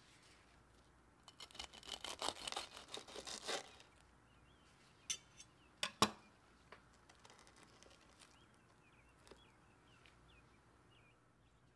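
Crisp fried breadcrumb crust of a cheese-stuffed potato ball crackling and crunching for about two seconds as it is broken open. It is followed by a few sharp knocks, the loudest about six seconds in.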